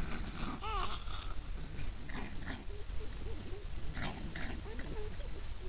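Crab-eating foxes giving short tense calls at each other, one rising and falling about a second in, with a few more brief calls later, over a steady high drone of night insects.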